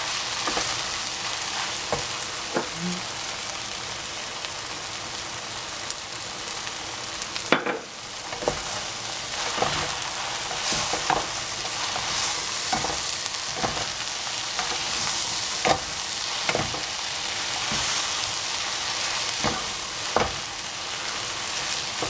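Noodles and vegetables sizzling in a hot frying pan while two wooden spatulas toss them, with irregular knocks and scrapes of the spatulas against the pan; one knock about seven and a half seconds in is the loudest.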